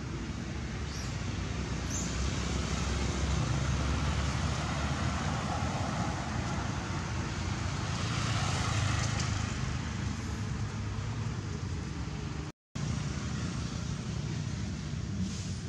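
Steady road-traffic noise, swelling twice as vehicles pass: about three seconds in and again about eight seconds in.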